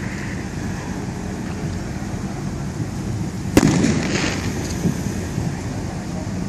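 Steady street traffic noise, with one sharp bang about three and a half seconds in that trails off in a rumble over about a second.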